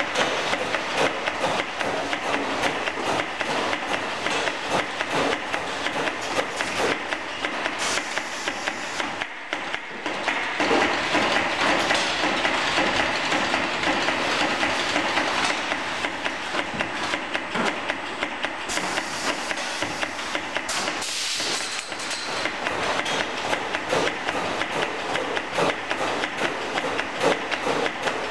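Laub/Hunt inline filling machine running: its conveyor and pneumatic filling heads make a continuous clatter of rapid clicks and knocks. A higher hiss joins in for about two seconds around two-thirds of the way through.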